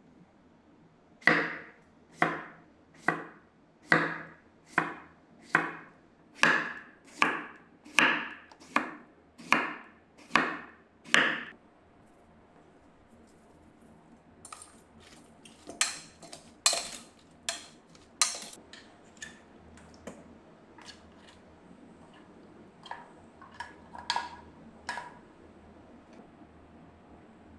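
A run of about thirteen heavy, evenly paced knocks, a little under one a second, like blows of a tool. They are followed by lighter, irregular clicks and taps.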